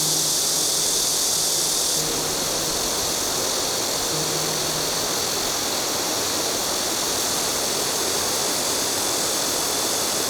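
Steady rushing noise, loudest in the high range, with a slight drop about two seconds in and faint low held notes in the first few seconds.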